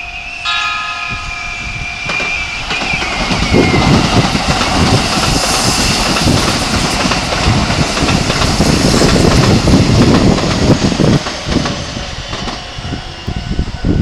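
A Keikyu electric train sounds its horn briefly about half a second in. Then a train runs close past, loud, its wheels clacking over the rail joints.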